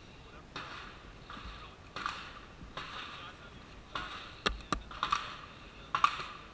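9mm cartridges being pressed one by one into a pistol magazine by hand, a short scrape-and-click about once a second. Two sharp cracks come close together about four and a half seconds in.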